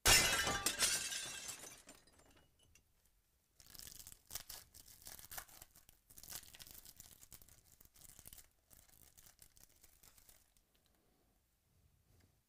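Trading-card pack wrapper crinkling and tearing as a pack is ripped open by hand. The loudest crinkle comes at the very start and fades over about two seconds. From about four seconds in, quieter, irregular crackling and tearing runs on until near ten seconds.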